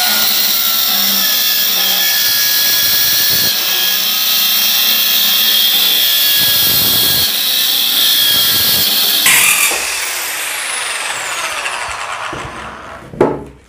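Corded drill driving a circular-saw converter attachment, its blade cutting through 12 mm plywood and shaking heavily. The drill vibrates so much that the cut comes out crooked. About nine seconds in, the cut ends and the blade spins down with a falling whine, and a knock follows near the end.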